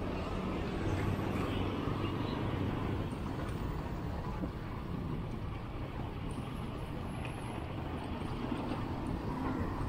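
Steady wind noise on a chest-mounted action camera's microphone while cycling, mixed with road traffic. A car engine hums alongside in the first few seconds.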